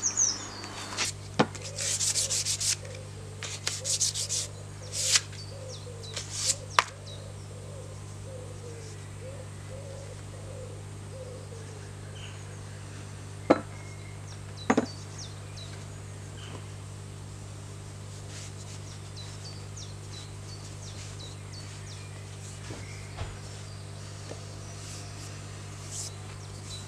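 Hand-sanding a hickory tomahawk handle with fine sandpaper, stripping its varnish. A run of short rasping strokes comes in the first seven seconds, followed by a low steady hum with a couple of sharp knocks.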